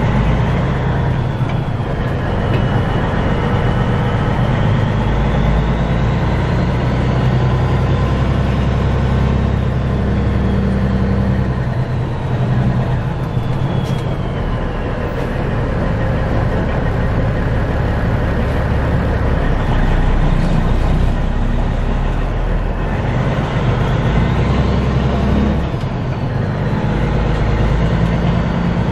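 Semi truck's diesel engine running at low speed, heard from inside the cab as a steady low drone, with a higher whine that rises and falls several times as the driver works the throttle.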